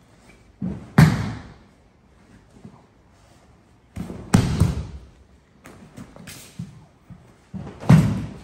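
A person thrown from kneeling lands on padded dojo mats three times, about three and a half seconds apart. Each landing is a heavy thud trailing off in a brief rustle.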